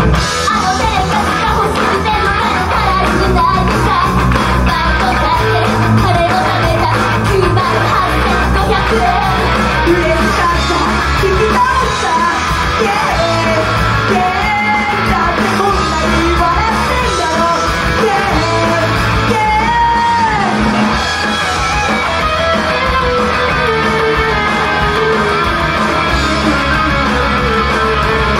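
Female idol group singing a rock song live over loud electric guitar backing.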